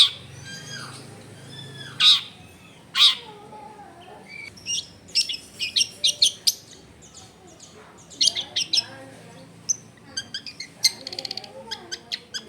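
Long-tailed shrike singing: three loud calls in the first few seconds, then quick runs of short, varied notes full of mimicked fills from other birds, with a fast trill near the end.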